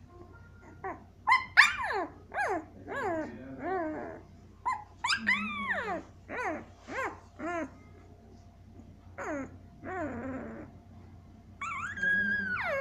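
Week-old Siberian Husky puppies crying: a string of short, high squeaky cries, most falling in pitch, with a longer drawn-out cry near the end.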